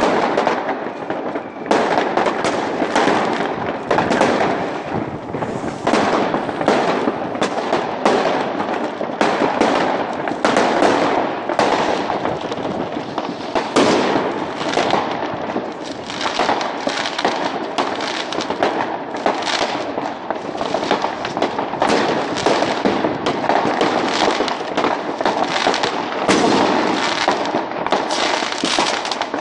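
A dense, unbroken barrage of fireworks: many overlapping bangs and crackling bursts going off one after another without a pause, picked up by a phone's microphone.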